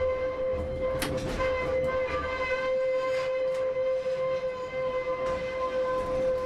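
Class 101 diesel multiple unit heard from on board: a steady high-pitched whine with overtones over the low rumble of the diesel engines, which drops away about two and a half seconds in, with a few scattered clicks and knocks.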